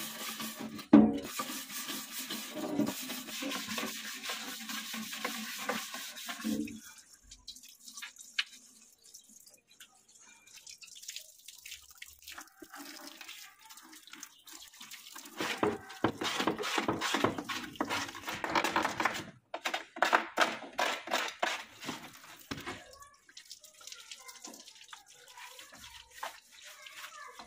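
Wire brush scrubbing the stainless steel drum of a front-load washing machine for the first six seconds or so, with a sharp knock about a second in. Then hose water runs and splashes over the plastic outer tub as it is rinsed and scrubbed.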